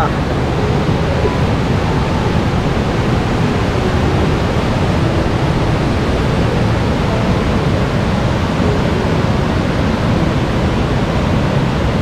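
Waterfall cascade of white water pouring over boulders into a river pool: a loud, steady rush of water with no breaks.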